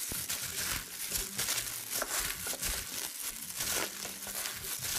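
Fresh mustard greens being tossed and kneaded by a hand in a plastic glove in a stainless steel colander: wet rustling and crinkling of leaves and glove, with scattered light clicks. The greens are being worked with salt for pickling.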